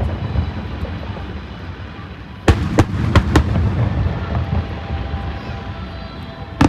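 Aerial fireworks shells bursting overhead: a quick run of four sharp bangs about two and a half seconds in and another near the end, with a continuous low rumble of reports between them.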